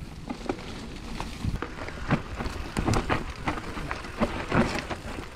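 Mountain bike descending a steep, slippery dirt trail: knobby tyres rolling over the ground, with irregular knocks and rattles from the bike.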